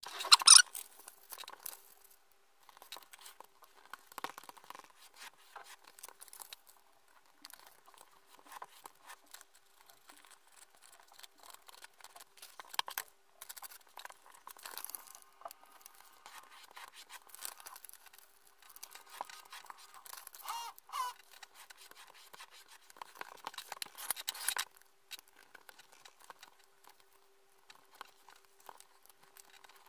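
A sheet of A4 paper being handled, folded and creased by hand: irregular rustling and crinkling, with a louder rustle right at the start and another a few seconds before the end.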